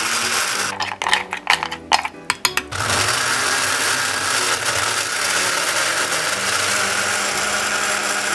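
Countertop blender crushing ice with spinach, fruit and water. For about two seconds it clatters and knocks unevenly as the ice and chunks hit the blades. From about three seconds in it settles into a steady whir as the mix turns smooth.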